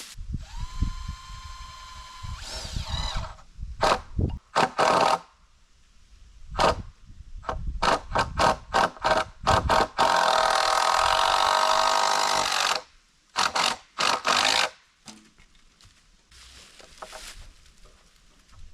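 Power drill driving screws into a wooden floorboard. It runs in short trigger bursts, with one steady whine near the start that winds down and a longer run of about three seconds midway.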